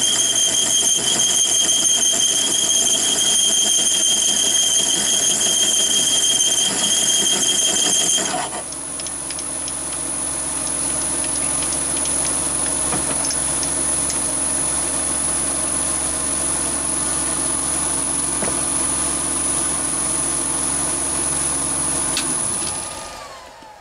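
Chinese mini lathe drilling with a large HSS twist drill, a loud high-pitched screech for the first eight seconds or so from the drive belt slipping on its pulleys under the cutting load. The screech then stops and the lathe runs on more quietly, winding down near the end as it is switched off.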